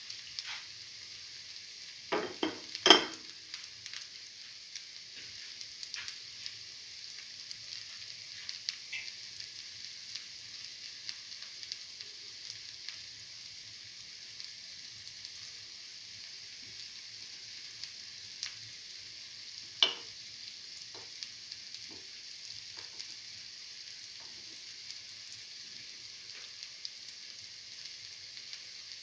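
Oil sizzling steadily around lentil and chickpea-flour fritters shallow-frying in a cavity pan, with fine crackling all through. A few sharp louder clicks stand out, the loudest about three seconds in and another about twenty seconds in.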